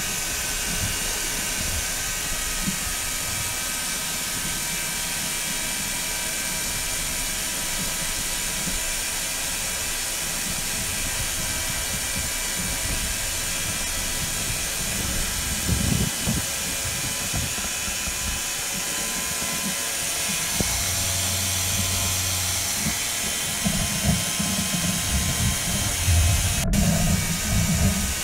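Multirotor drone's motors and propellers running steadily, heard close from the camera on the drone: a constant hiss with several steady whining tones. Low rumbling thumps come and go in the second half, with a sharp click near the end.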